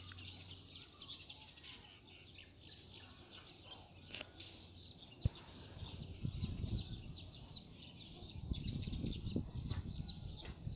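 Faint birds chirping: a steady run of short, quickly repeated high calls. A single sharp click comes about five seconds in, and a low rumble rises in the second half.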